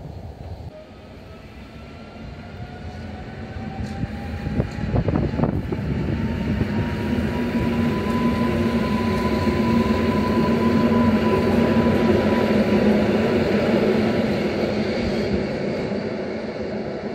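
Modernised EN57 electric multiple unit pulling away from a station. Its electric drive gives a whine that rises in pitch as the train accelerates and then holds steady, with a few sharp knocks about four to five seconds in. The rolling noise of the cars swells as they pass and fades as the train draws away.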